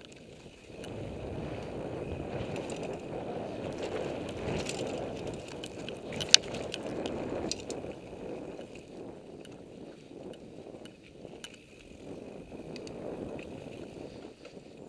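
Mountain bike running down a dirt trail: continuous rumble and rattle of tyres and bike over the rough ground, louder in the first half, with one sharp knock about six seconds in.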